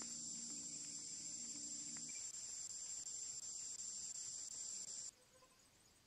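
Steady, high-pitched drone of insects that drops abruptly to a much fainter level about five seconds in.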